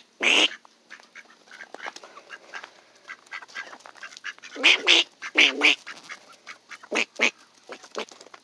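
Mallard ducks quacking: a handful of loud quacks, one just after the start and most in the second half. Light crunching steps on gravel run between them.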